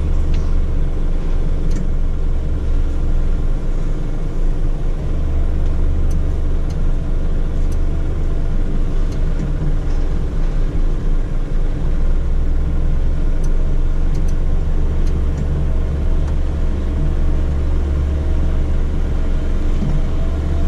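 Heavy truck's diesel engine idling, heard from inside the cab: a steady low rumble with a constant hum.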